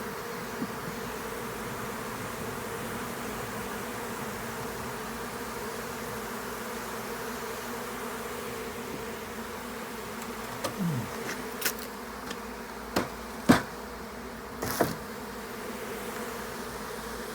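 A mass of honeybees buzzing in a steady hum, with one buzz falling in pitch about eleven seconds in. Several sharp clicks or knocks come near the end, the loudest about thirteen seconds in.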